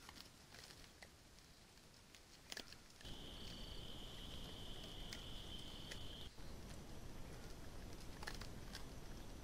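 Faint ticks and rustles in leaf litter. Then a steady high-pitched insect buzz starts about three seconds in over a louder hiss, holds for about three seconds and stops.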